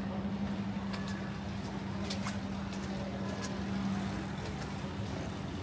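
Street ambience: a steady low hum with a noisy background and scattered light clicks and taps.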